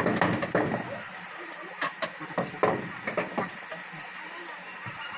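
Irregular knocks and clatters of a wooden widowhood pigeon box being pushed and fitted into place against a wooden loft wall.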